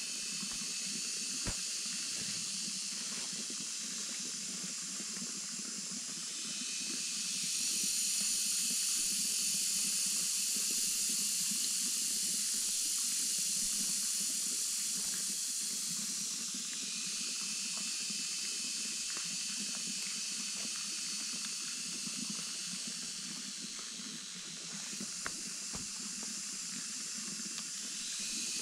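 Steady high-pitched hiss that swells louder about seven seconds in and eases off after about sixteen seconds, with a few faint clicks.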